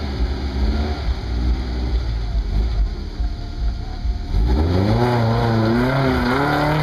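Lifted Toyota pickup truck's engine running at low revs as it crawls through a deep dirt rut, then revving up about four seconds in, its pitch rising and wavering as the driver works the throttle.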